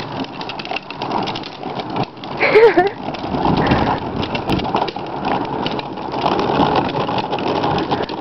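Child's ride-on toy tractor driving along, its motor running and plastic wheels rattling over pavement. A short wavering cry about two and a half seconds in.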